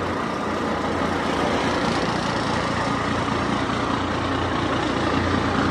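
Large diesel truck engine running steadily.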